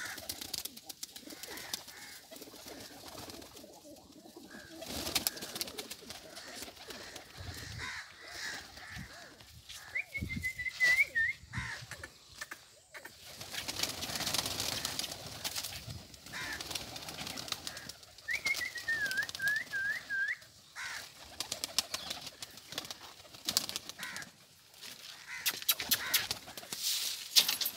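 Domestic pigeons at a loft, cooing with bursts of wing flapping, amid scattered clicks and rustling. A small bird's run of high, wavering whistled notes sounds twice, about ten and eighteen seconds in.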